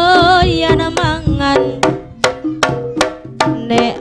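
Live jaranan music: kendang drum strokes in a steady rhythm with a held, wavering melody line over them.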